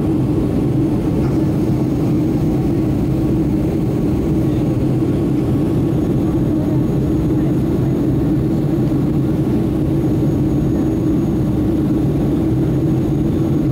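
Steady cabin drone of a twin-engine jet airliner in flight, heard from a window seat over the wing: engine noise and airflow with a constant low hum.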